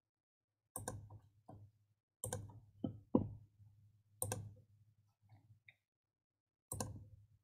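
Computer mouse clicks: a handful of sharp clicks spaced one to two seconds apart, with a few fainter ones between.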